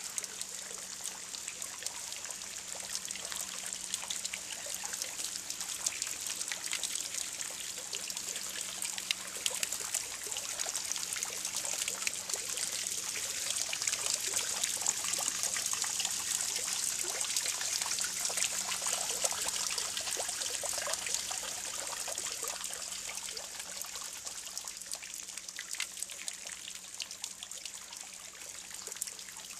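Spring water spouting from a copper standpipe fountain and splashing into a stone pool: a steady trickling splash with many small drips, a little louder in the middle stretch.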